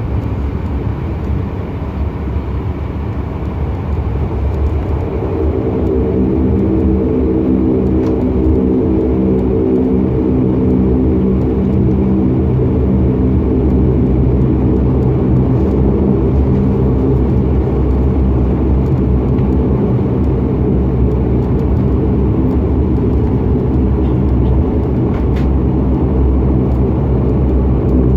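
Dash 8 Q400's twin turboprop engines and propellers droning steadily, heard from inside the cabin; the drone grows louder about five seconds in and then holds.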